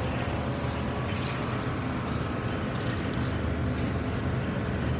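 Steady low rumble and hiss of supermarket background noise by the refrigerated meat cases.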